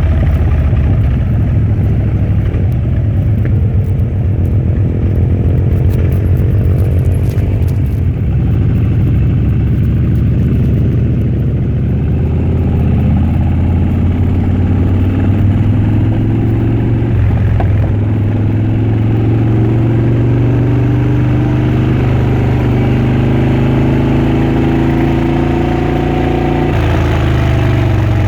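Harley-Davidson Dyna Switchback's Twin Cam 103 V-twin engine and exhaust under way. It runs at a steady pace, then from about halfway the pitch climbs slowly as it pulls, until it drops suddenly near the end.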